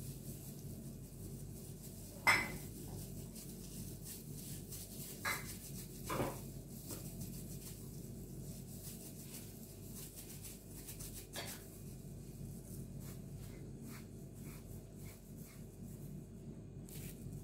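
Light knocks and clinks against a steel serving tray and a ceramic bowl as gloved hands scoop mashed potato and press croquettes in breadcrumbs. A sharper clink comes about two seconds in, and a few more follow. A low steady hum runs underneath.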